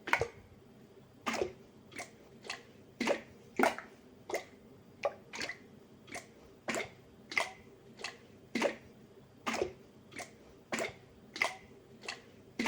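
Glass jar of thick tomato sauce shaken back and forth by hand, the sauce slapping against the glass with each shake in short wet sloshes at roughly two a second.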